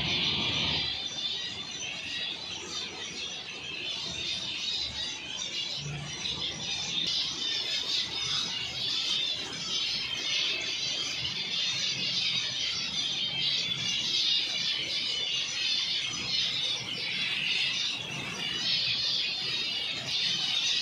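A flock of aviary finches chirping all at once in a dense, continuous twittering.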